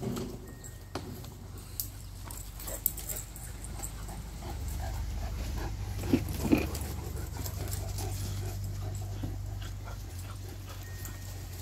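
Large mastiff-type dogs and a puppy playing, with scuffling and two short dog vocal sounds close together about six seconds in.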